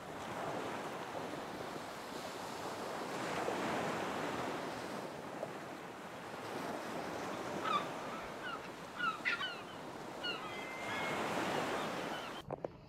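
Ocean waves washing on the shore in a steady rush that swells and eases, with a few short high chirps in the second half.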